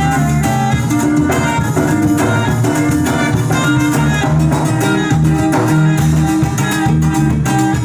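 Norteño band with saxophone playing an instrumental huapango: sax melody over plucked strings, bass and drum kit, loud and steady.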